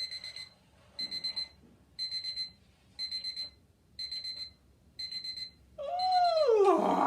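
Alarm clock beeping: quick runs of high electronic beeps, about one run a second, seven times. Near the end a loud, drawn-out voice slides down in pitch as the alarm stops.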